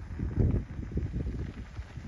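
Uneven low rumble and knocking from an e-bike riding over a dirt road, with wind buffeting the microphone.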